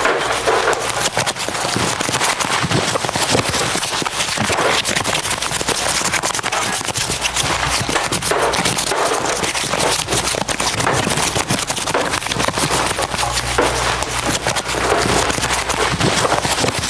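Dense, continuous crackling and crinkling of recyclable packaging, plastic and paper, being crumpled and handled. A low hum sits underneath at times, most noticeably near the end.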